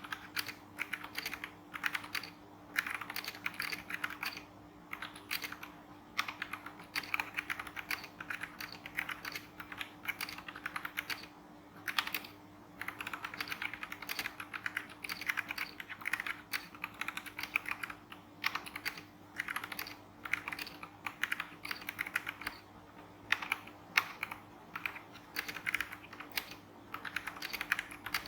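Typing in quick bursts on an MQ187 TKL mechanical keyboard kit fitted with Kailh Brown tactile switches and Nautilus keycaps, all in stock form: rapid runs of key clacks broken by short pauses.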